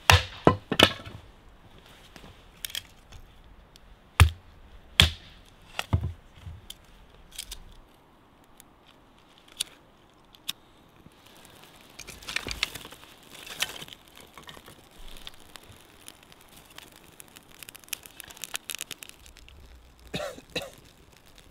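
An axe splitting firewood on a chopping stump: about seven sharp chops over the first eight seconds. Later come softer crackling and tearing sounds as birch bark and kindling are handled and lit for a campfire.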